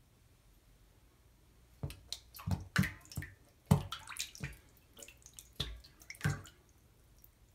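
Air blown through a trumpet with its bell submerged in a sink of water, bubbling out in a string of short, irregular bursts that start about two seconds in. It is a trumpet imitation of a fish.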